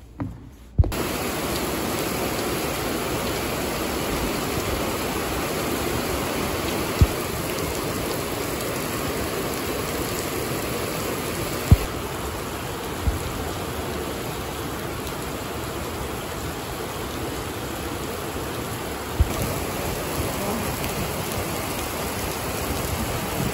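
Heavy rain pouring down and splashing on a hard surface, a steady hiss that starts about a second in, with a few single sharp taps through it.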